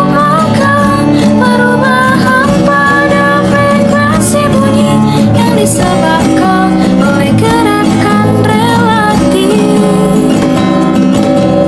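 A song: a female voice singing Indonesian lyrics about the Doppler effect over a strummed acoustic guitar.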